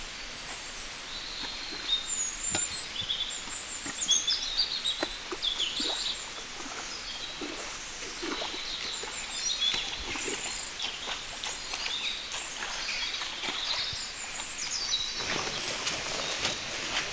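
Several small birds chirping and twittering in quick short calls over a steady outdoor background hiss, with a few faint clicks here and there.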